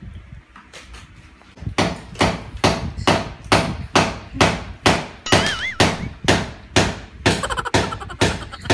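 Hammer striking a nail into a wall in steady, evenly spaced blows, about two a second, starting a little under two seconds in.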